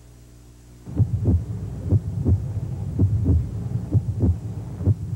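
Heartbeat sound effect: a pair of low thumps about once a second, starting about a second in after a quiet moment.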